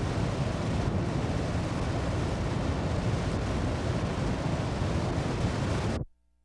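American Falls at Niagara, a steady rush of falling water, which cuts off abruptly about six seconds in.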